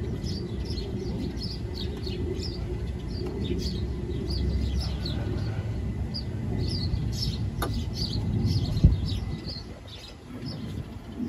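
Small birds chirping over and over over a steady low rumble, with one sharp knock about nine seconds in.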